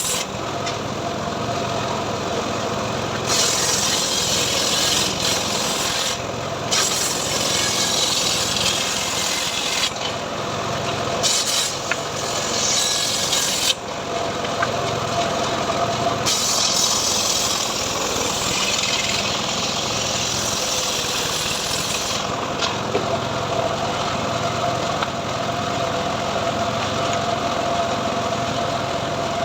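Homemade engine-driven srekel sawmill running while its saw cuts teak. The high hiss of the cut comes and goes in stretches of a few seconds and stops about three-quarters of the way through, leaving the engine running steadily.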